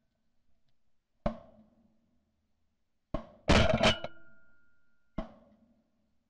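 Shotgun shots heard from a camera mounted on the gun's barrel: a fainter sharp report about a second in and another near the three-second mark, then two loud shots close together, followed by a steady ringing tone, and one more faint report near the end.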